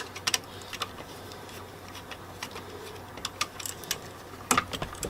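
Scattered light clicks and taps of a screwdriver and wires on a wall outlet as the wires are unscrewed from its terminals, with a short run of sharper clicks near the end.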